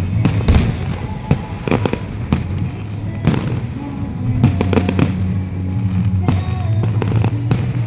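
Fireworks going off in a rapid, irregular string of bangs, with music playing underneath.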